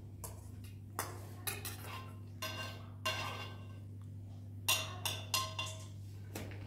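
A series of sharp knocks and clinks of hard objects, several of them with a short ringing tone, over a steady low hum.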